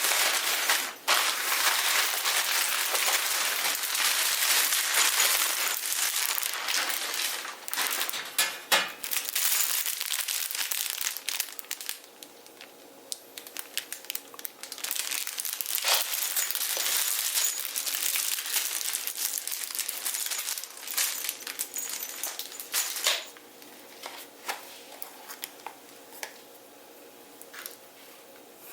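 Packaging being crinkled and handled, a dense crackling rustle with many small clicks, in long stretches broken by quieter pauses.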